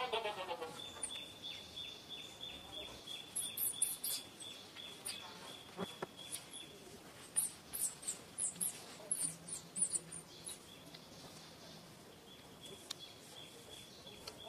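Birds chirping: many short, high chirps, thickest through the middle, over a steady high-pitched tone that drops out for a few seconds midway. A single falling call is heard right at the start.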